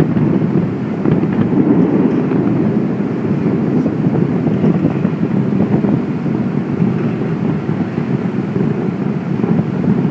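Wind buffeting the microphone: a steady, loud low rumbling noise with no separate bangs.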